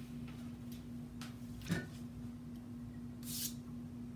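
Faint kitchen handling sounds from someone working off to the side: a few light clicks, a sharper knock about a second and a half in, and a short sliding swish a little after three seconds, over a steady low hum.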